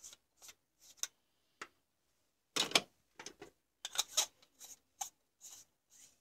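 Spiral glass tubes and plastic bases of compact fluorescent bulbs being handled: a string of short, irregular clicks and scrapes as fingers rub the glass coils and the bulbs knock together, the loudest a longer scrape about two and a half seconds in.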